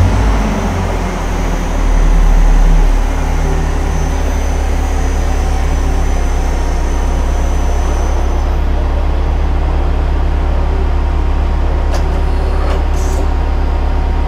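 Nakamura TMC-18 CNC lathe running a program: a steady low machine hum that swells louder for about a second around two seconds in, with a faint high whine that stops partway through and a few light clicks near the end.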